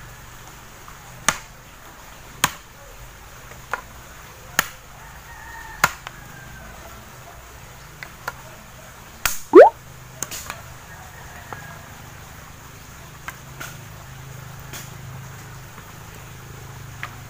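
Bolo (machete) chopping dry branches for firewood: sharp strikes about once a second for the first six seconds, then scattered strikes. The loudest impact comes about halfway through, with a short rising squeal.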